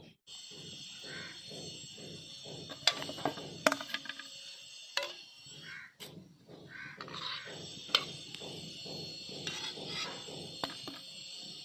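Crows cawing a few times over a steady hiss, with a few sharp clinks.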